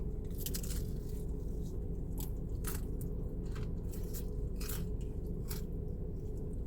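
Close-up chewing and crunching of crispy fried chicken, with sharp crackles about twice a second at an uneven pace, over a steady low background hum.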